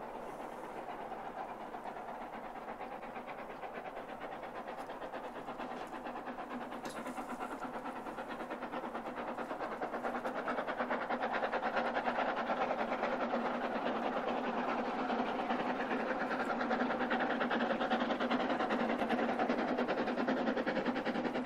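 Narrow-gauge steam locomotive working as it approaches out of sight, a steady sound that grows louder about halfway through.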